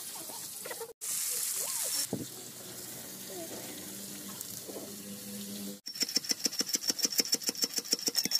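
About six seconds in, a pestle starts pounding in a small metal mortar: rapid, even metallic strikes with a ringing tone. Before it there is a second of hiss and some faint low sounds.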